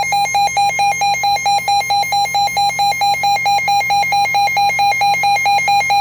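Electronic emergency alert alarm beeping rapidly at one steady pitch, about five beeps a second.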